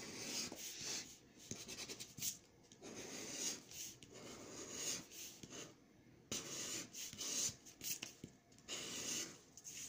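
Scratch-off lottery ticket being scratched, with quick, uneven strokes scraping the coating off the play area.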